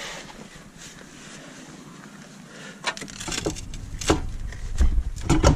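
Knocks and clunks of metal drivetrain parts being handled and pushed together as the drive shaft is worked against the rear differential. Quiet at first, the knocks start about three seconds in, with the heaviest thumps near the end.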